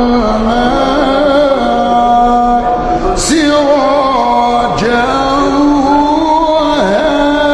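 A man reciting the Quran in a melodic chanted style, drawing out long held notes with ornamented turns in pitch. A short hissing consonant about three seconds in.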